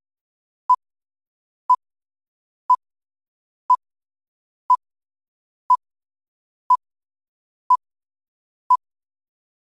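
Film-leader countdown beeps: a short, single-pitch beep once every second, nine times, with silence between.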